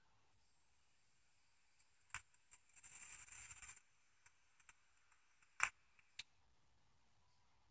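Faint sounds of a long draw on a tube vape mod with its atomizer: a few soft clicks and a brief crackling hiss about three seconds in.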